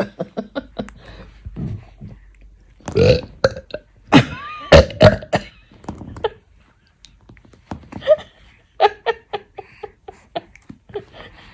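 A woman burping loudly over and over, the two biggest burps about three and five seconds in, then a quick run of short, choppy sounds near the end.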